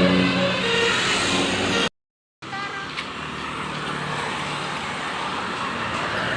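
Road traffic noise from passing vehicles: a steady rush of engines and tyres. Before it, a melodic pitched sound fades out, and the audio drops out for a moment about two seconds in.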